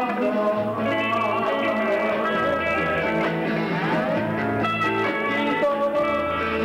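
Live band music in an instrumental passage: electric guitar to the fore over keyboard and a low bass line, with one short sliding note about four seconds in.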